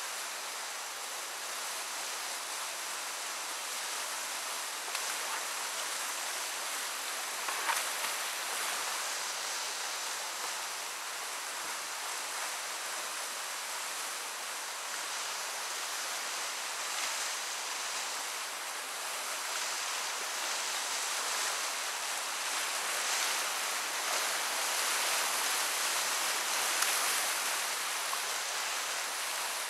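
Whitewater river rapids rushing steadily around a kayak, the rush growing a little louder near the end, with a couple of brief louder moments about eight seconds in and late on.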